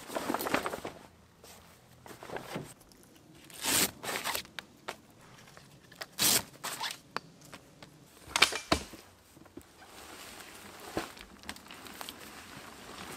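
Rustling and crinkling of the heavy fabric of a rooftop tent and its travel cover as the cover is pulled off and the tent unstrapped and unfolded, in several short loud bursts with quieter gaps.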